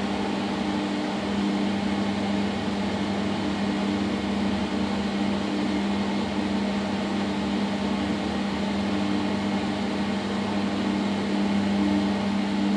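Steady low hum inside a 2012 SMW traction elevator car as it travels up one floor, one low tone held throughout with a fainter, intermittent tone above it.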